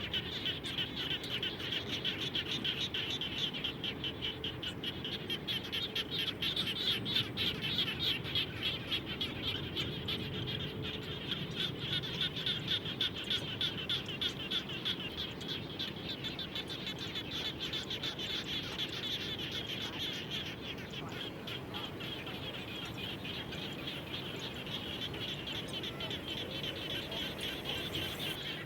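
A chorus of many frogs calling after rain, a dense, fast-pulsing trill that goes on without a break.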